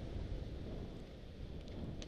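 Wind noise buffeting a helmet camera's microphone on a fast mountain bike descent, over the rumble of tyres on a dirt trail, with a few light clicks near the end.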